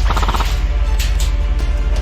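Music over the steady low rumble of a vehicle's engine, with a short rattling burst right at the start.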